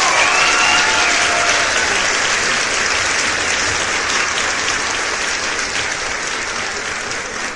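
A crowd cheering and applauding, with dense clapping and whooping shouts near the start. It eases off slowly.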